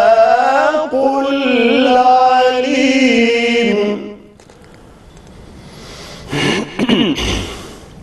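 A man's solo voice chanting Quran recitation, holding a long, ornamented melodic phrase with wavering pitch that ends about four seconds in. After a pause, a short burst of louder sound comes near the end.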